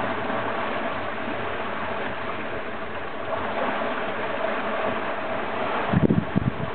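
Steady rush of water and wind around a sailing yacht under way at about nine knots, with a faint steady hum underneath. A few low thumps come close together about six seconds in.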